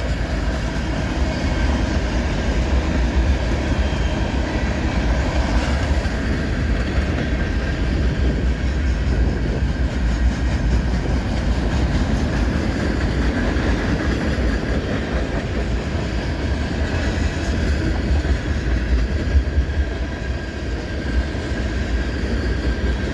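Freight train cars rolling past close by: a steady, continuous rumble of steel wheels on rail with a faint high steady tone from the wheels.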